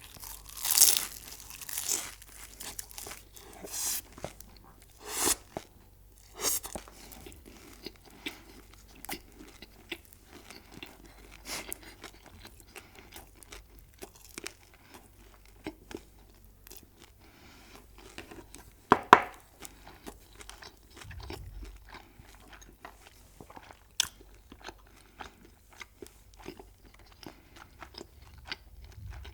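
Close-miked eating: crunchy food bitten and chewed. Loud crunches come in the first several seconds, then quieter, steady chewing, with one louder sharp sound about two-thirds of the way through.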